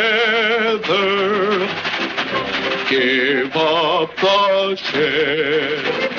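Orchestral cartoon score: a melody of held notes with a strong wobble in pitch, played in short phrases, with a quick upward run about three and a half seconds in.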